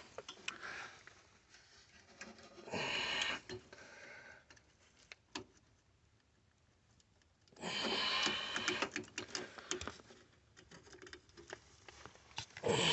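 Scratching, rubbing and clicking as a stiff thermostat wire is pushed and worked down a furnace's pressure-switch port, in two longer bursts with small clicks between them.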